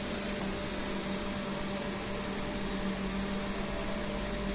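Steady electrical hum with an even, fan-like whir that holds unchanged throughout.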